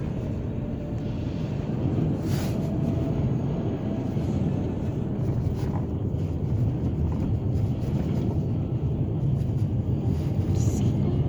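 Car driving slowly on a snow-covered road, heard from inside the cabin: a steady low rumble of engine and tyres.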